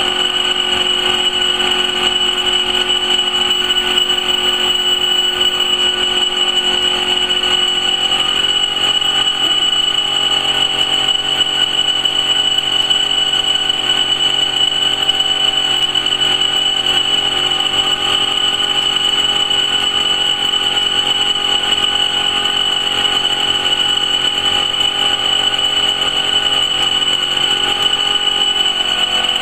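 Laser fabric-cutting machine running, a steady high whine over a hum of motors.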